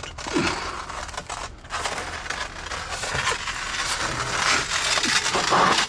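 Stack of large 4-by-2-foot tiles being shifted by hand, scraping and knocking against one another with a rough, continuous grating noise.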